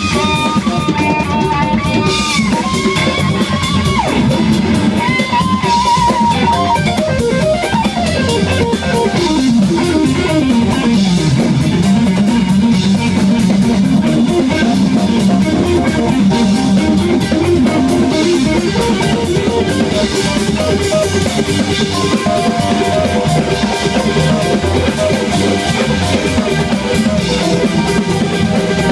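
Live funk-rock band playing: an electric guitar solo with held, bent notes and a long downward slide about eight seconds in, over a drum kit.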